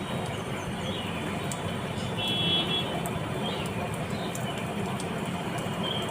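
Steady traffic rumble with a short, high-pitched horn toot a little after two seconds in, and a few brief bird chirps scattered through.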